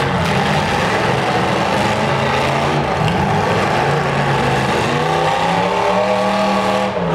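Demolition derby cars' engines running hard at high revs as they spin their wheels on the dirt, with one engine's pitch climbing between about five and seven seconds in.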